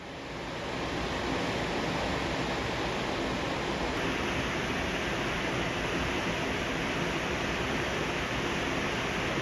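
Steady rushing noise of wind and water, fading in over about the first second and then holding even.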